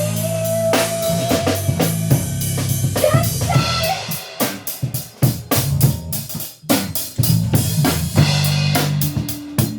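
Band music with no singing: a drum kit plays a beat of bass drum and snare hits over held low bass notes, with guitar. The beat drops out briefly for a moment past the middle.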